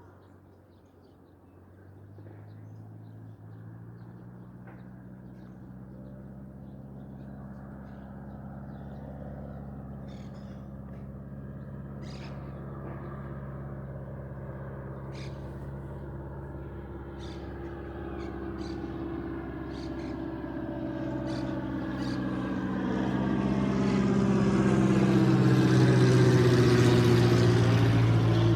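Propeller-driven light aircraft (avioneta) flying in close, its engine drone growing steadily louder and loudest near the end as it passes nearby. Faint bird chirps in the middle.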